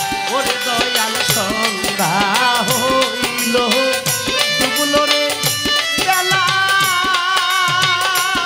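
Live baul folk music: a male singer's voice over hand drums keeping a quick, even beat and a melody line that holds long steady notes near the end.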